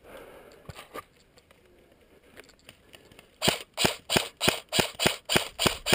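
G&G CM18 Mod1 airsoft electric rifle firing a quick string of semi-automatic shots, about eight sharp cracks at roughly three a second, starting a little past halfway.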